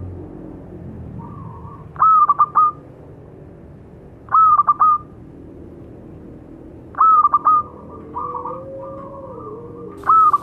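Local zebra dove (perkutut) cooing: three short phrases of three or four quick notes, spaced about two and a half seconds apart, with fainter calls between them. Near the end a longer, faster run of notes begins.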